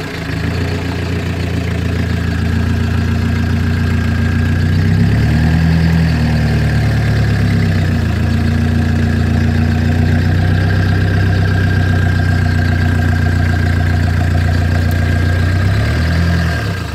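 Off-road 4x4's engine running steadily at low revs while the vehicle crawls through bog mud; the engine note shifts briefly about five seconds in, and a thin steady whine runs above it.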